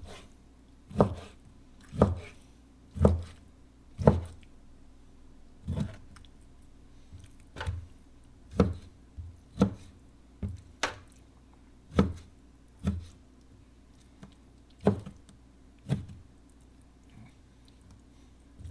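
Knife cutting deer meat and knocking down onto a cutting board: sharp knocks, roughly one a second and unevenly spaced, as fat and silver skin are trimmed off.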